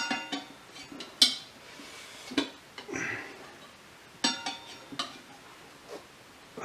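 Metal tire levers clinking and knocking against each other and the wheel during a hand tire mount: a handful of separate clinks spread across a few seconds, some with a short metallic ring.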